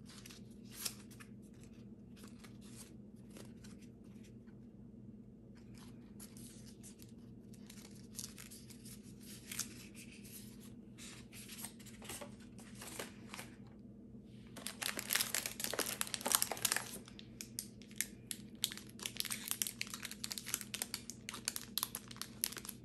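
Plastic snack wrappers crinkling and rustling as they are handled, in short irregular crackles, sparse at first and busiest in the second half.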